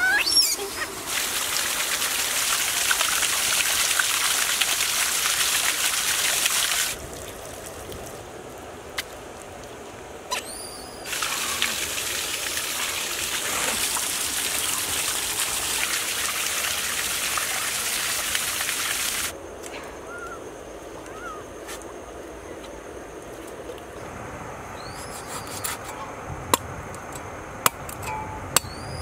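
Two long stretches of steady rushing noise that start and stop abruptly, between quieter outdoor ambience with a few bird chirps. Near the end come a few sharp knocks as a cleaver cuts into a plucked chicken.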